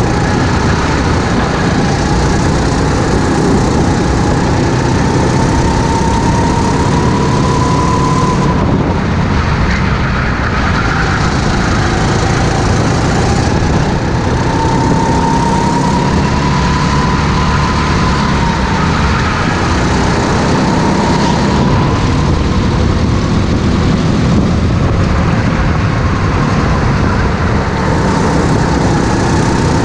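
Go-kart engine running hard under the driver, its pitch climbing as the kart gathers speed and dropping as it slows for corners, with a clear drop about eight seconds in.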